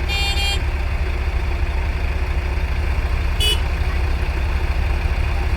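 JCB 3DX backhoe loader's diesel engine running steadily. There are two short, high-pitched toots: one about half a second long at the start, and a briefer one about three and a half seconds in.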